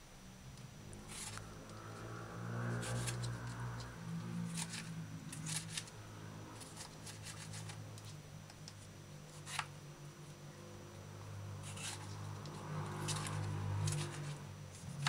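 Kitchen knife cutting and dicing a tomato on a plastic cutting board: irregular soft taps and slicing clicks as the blade goes through the flesh and meets the board. A low steady hum runs underneath.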